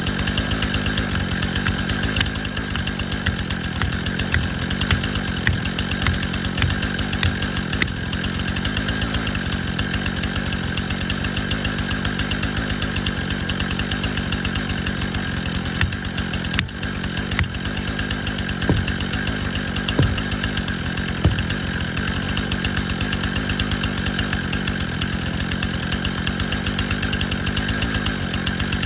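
Jonsered CS2255 two-stroke chainsaw running steadily at high revs, with a brief dip in engine sound about two-thirds of the way through.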